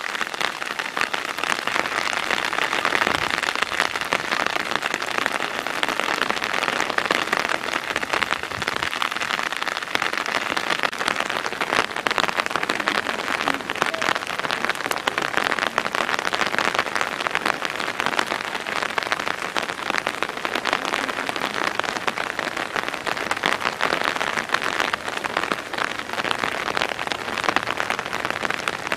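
Steady rain falling, a dense hiss of many small drop ticks.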